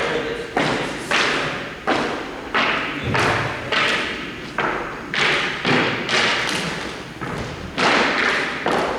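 A steady run of sharp thuds, about three every two seconds, each with a short ringing tail.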